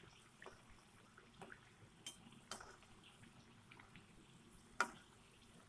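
Faint sizzle of dough pieces deep-frying in oil in a karahi, with a few sharp clinks of a utensil against the pan, the loudest near the end.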